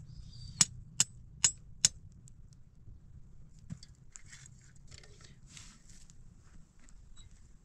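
Four sharp knocks in quick succession, about two a second, in the first two seconds, then quieter rustling and scraping as firewood and camp things are handled beside a small campfire.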